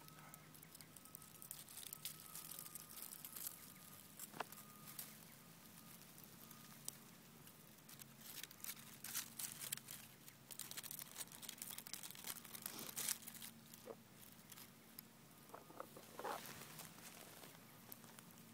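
Faint, scattered rustling and crackling of dry leaves and grass, with a few clicks clustered near the end, over a low steady hum.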